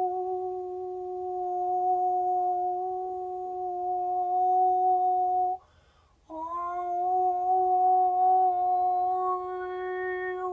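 A woman's voice holding a long, steady sung tone in vocal sound scanning, sung close against a person's chest to find a note that resonates there. About halfway through the tone breaks off for a short breath, then comes back, sliding up slightly into the same pitch and holding again.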